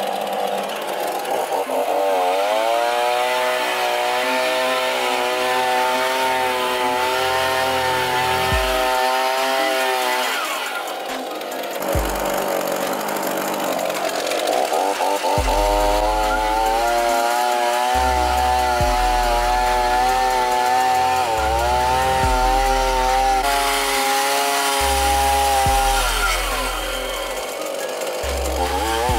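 Small two-stroke chainsaw engine driving a homemade brush-drum attachment, revving up and easing off in turns as the spinning brush scrubs rust from steel. It rises about two seconds in, drops away near the middle, then revs again with short dips. Background music with a deep bass line runs under it in the second half.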